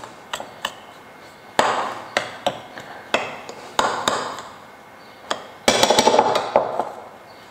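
A metal spoon scraping and knocking against a ceramic bowl while stirring grated coconut. The strokes and clicks come irregularly, with a longer run of scraping about six seconds in.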